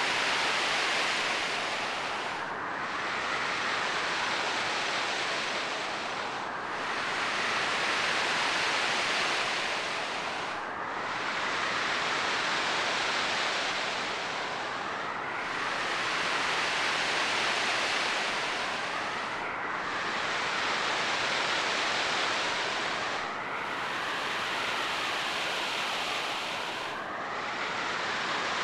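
Ocean surf sound effect: a steady wash of waves that swells and eases about every four seconds.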